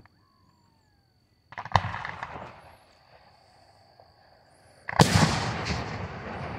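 Aerial firework shells bursting: a sharp bang about two seconds in with a short rumbling tail, then a louder bang near the five-second mark followed by a long rumbling, crackling tail.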